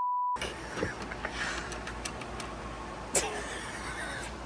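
A short, pure, steady beep at the very start, cut in over the audio like a censor bleep. Then steady low shop hum with a few light clicks and one sharp clack about three seconds in.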